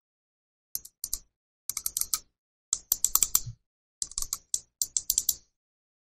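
Razer Viper Ultimate wireless gaming mouse's buttons clicked in quick runs: about six bursts of sharp clicks, some rattled off several to the second.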